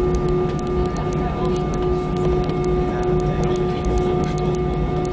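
Airbus A320 cabin noise: the jet engines running with a steady hum and several steady tones, and a light, fast ticking rattle of about three or four ticks a second on top.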